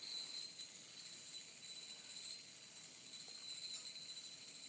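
Fidget spinners spinning, a faint, steady, high-pitched whir.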